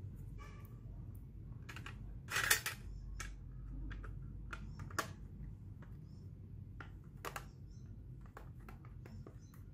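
Plastic hard-drive enclosures being handled: scattered light clicks and taps of plastic and metal, with a louder scrape about two and a half seconds in and sharp clicks near five and seven seconds.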